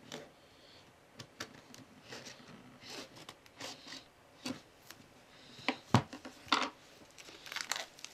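Scissors snipping and plastic shrink-wrap crinkling as it is cut off a cardboard box: a run of irregular clicks and rustles, with one sharp knock about six seconds in.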